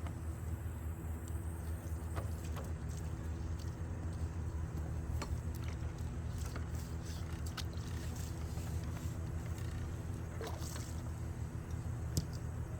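A steady low engine or motor hum runs throughout, with a few faint clicks and scrapes.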